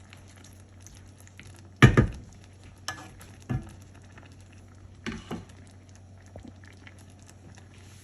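Beef and vegetables frying in a pan with a faint sizzle. A few short, sharp knocks sound over it, the loudest about two seconds in.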